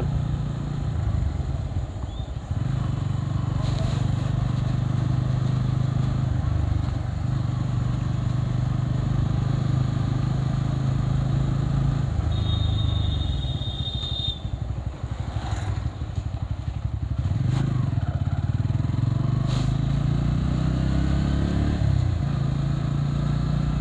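Motorcycle engine running under way, its hum shifting in pitch with speed. It eases off a little past the middle, then picks up again. A short high-pitched tone sounds about halfway through.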